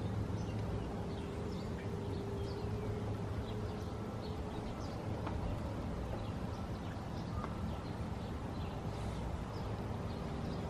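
Outdoor ambience: faint birds chirping here and there over a steady low hum.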